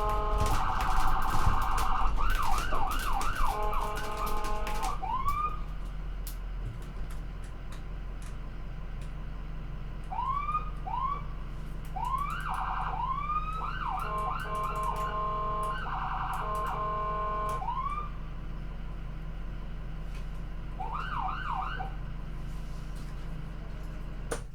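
Electronic car alarm cycling through its tone patterns: pulsed steady tones, fast warbles and repeated rising whoops. It drops in level about five seconds in and carries on through its cycle.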